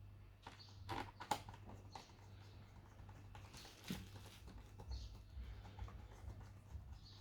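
Faint clicks and light tapping from small parts being handled, a few sharp ticks standing out about a second in and again near four seconds, over a steady low hum.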